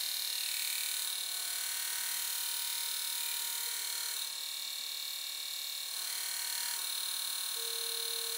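2x72 belt grinder's variable-frequency-drive motor running steadily with a leather strop belt: an even electric hum and whine made of several steady high tones. A lower tone joins near the end.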